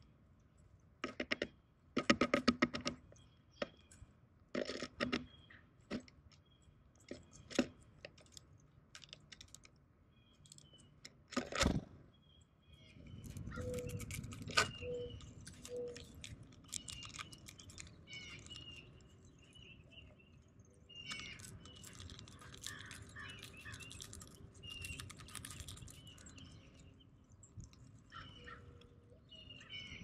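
Birds feeding on a seed-filled platform feeder: sharp clicks and taps of bills and feet on seed and the feeder tray, with short bird chirps in the background. About halfway through, a low rumble sets in under the chirping.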